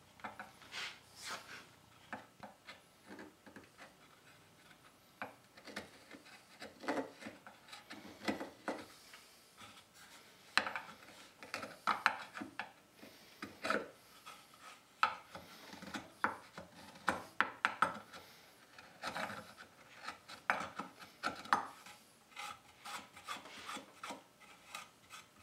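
Hand gouge scraping out the hollow of a wooden spoon bowl, a run of short, irregular scraping strokes on the wood.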